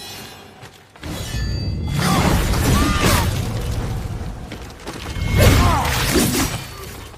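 Designed sword-combat sound effect for a long odachi blade: a metallic ring at the start, then two long, loud swells of crashing, shattering noise with gliding tones through them, the second peaking about five and a half seconds in.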